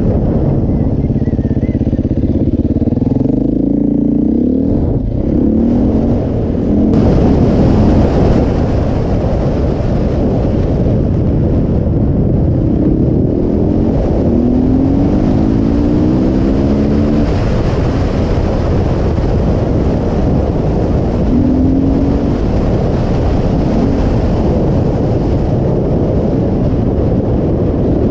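Supermoto motorcycle engine accelerating in several pulls, its pitch rising through each gear with shifts between, over a steady rush of wind noise on the microphone from riding speed.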